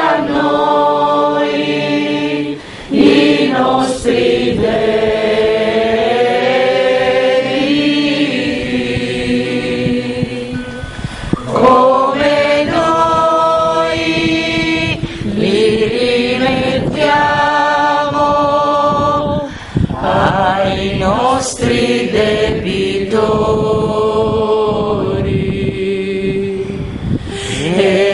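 Choir singing a slow liturgical hymn during Mass, in long held notes and phrases that break off briefly every several seconds.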